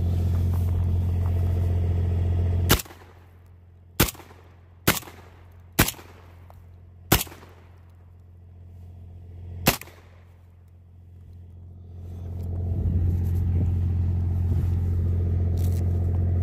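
Six shots from an M12AR 12-gauge semi-automatic shotgun, the first five about a second apart and the last after a longer gap. A steady low hum lies under the audio; it drops away at the first shot and comes back near the end.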